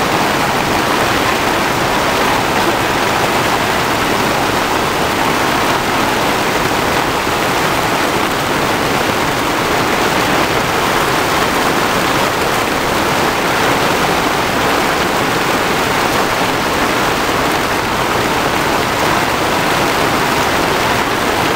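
Rain pouring down steadily, a dense even hiss that does not let up.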